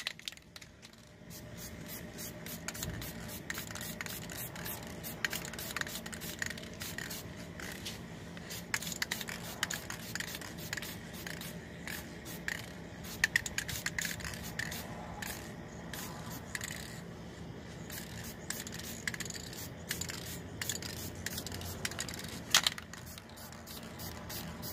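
Aerosol spray paint can spraying onto a car body panel in many short, quick bursts, with a faint steady hum underneath.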